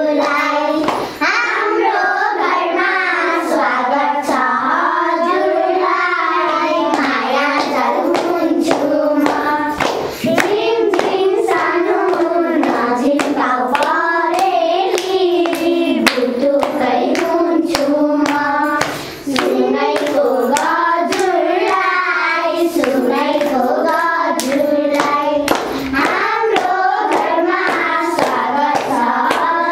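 A group of young girls singing a song together in unison while clapping their hands in time, with brief breaths between lines about one, ten and nineteen seconds in.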